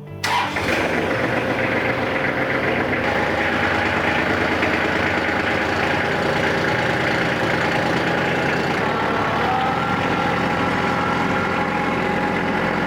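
Tractor engine starting up just after the beginning and then running steadily at idle.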